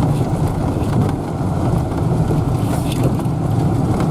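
A vehicle driving slowly, its engine running with a steady low rumble.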